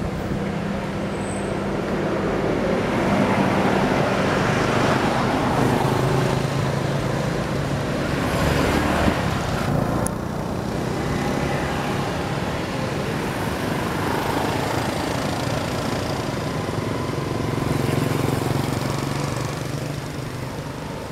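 Motor vehicle traffic: engines running and vehicles passing, swelling and fading over several seconds.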